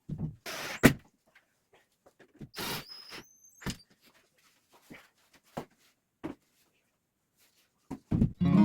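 Scattered knocks, thuds and brief scrapes of hand work, with the sharpest knock about a second in and a short squeaky scrape around three seconds. Music comes in at the very end.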